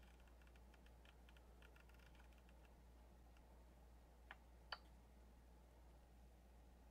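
Faint clicking of the rotary control knob on a Prusa MK3's LCD panel. Quick soft detent ticks come as the knob is turned through the menu, then two sharper clicks about four and a half seconds in as it is pressed to select an item.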